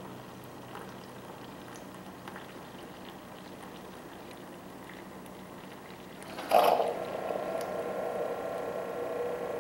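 Keurig coffee brewer pouring a thin stream of hot water into a paper-filtered coffee basket over a glass mug, a steady trickle. About six and a half seconds in, a sudden loud gurgling burst, and then the brewer runs on with a steady humming whine as the brew cycle ends and the stream thins.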